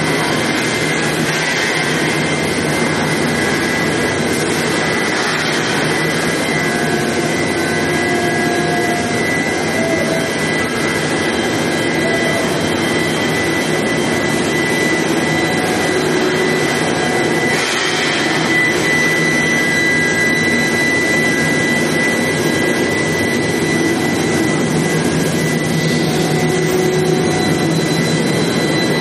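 Steady industrial din of an induction heat-treatment line for oil drill pipe: a constant machine roar with a high-pitched whine held on a few steady tones.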